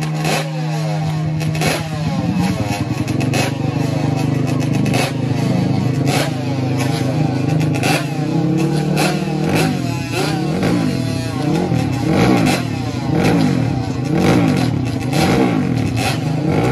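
Sport ATV engines running at the drag-strip starting line: steady high idle for the first half, then from about eight seconds in the throttle is blipped over and over, the revs rising and falling roughly once a second, as the riders wait to launch. Sharp pops punctuate the engine sound.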